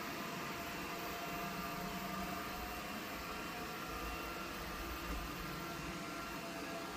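Cuckoo Power Clone robot vacuum running, a steady whir of its suction motor with a faint high hum.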